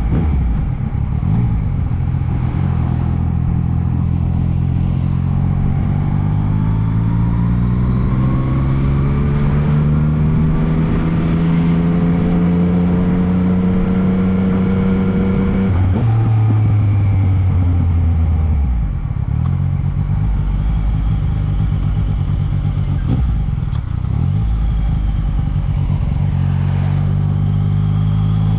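Yamaha MT-09 three-cylinder motorcycle engine on the move, its pitch climbing slowly and steadily under a long, gentle acceleration, then dropping suddenly about halfway through as the throttle closes. It winds back up and eases off twice more before the end.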